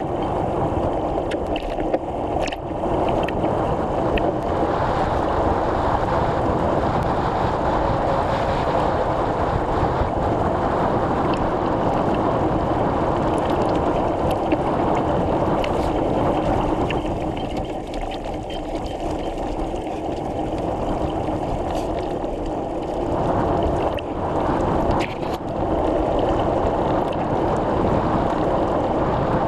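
Steady rushing wind and rolling noise on a camera riding along on a moving bicycle, with scattered small knocks and clicks.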